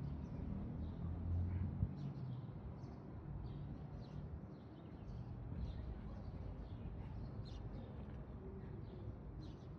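Outdoor background: a low, steady rumble with many faint, short, high chirps of birds scattered through it.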